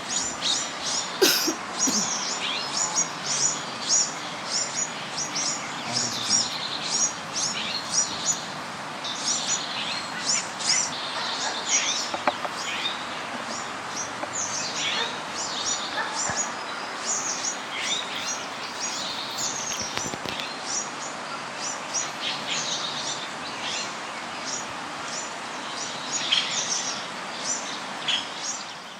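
A group of small birds chirping and chattering without a break: many rapid, short, high-pitched calls overlapping over a steady background hiss.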